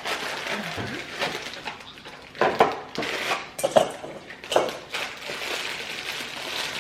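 Kitchen clatter: a mixing bowl and utensils being handled and set down on a counter, a string of separate knocks and clinks, some with a short ring.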